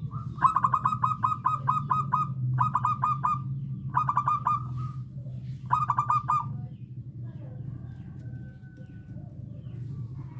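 Zebra dove calling: four phrases of rapid staccato cooing notes, about five notes a second, the first and longest lasting about two seconds, then stopping about six and a half seconds in. A steady low hum runs underneath.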